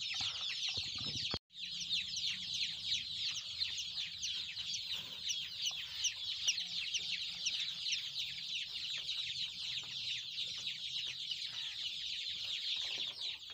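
A large flock of young chicks peeping continuously, a dense chorus of short high cheeps: hungry chicks calling for feed. The sound drops out for a moment about a second and a half in.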